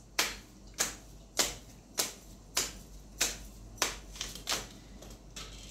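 Tarot deck being shuffled by hand, the cards slapping together in a sharp click a little under twice a second, about eight strokes, growing weaker near the end.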